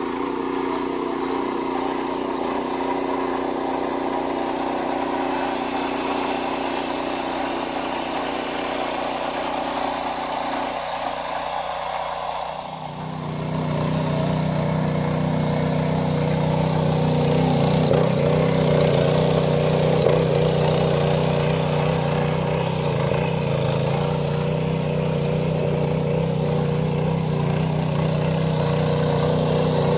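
A 7 hp power weeder's small single-cylinder engine running steadily while it tills soil. About 13 seconds in the sound changes abruptly to a louder, deeper engine note.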